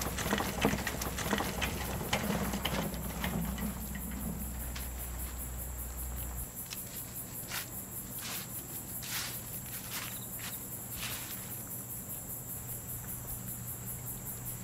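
Crickets chirping in a fast, steady pulse through a night-time film soundtrack. A few soft knocks about a second apart come midway, like slow footsteps.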